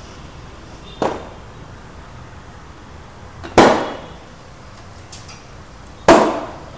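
Three sharp metallic knocks about two and a half seconds apart, each with a short ring, the second and third the loudest: work on a car wheel at a wheel-balancing machine as it is mounted and its old wheel weights are knocked off.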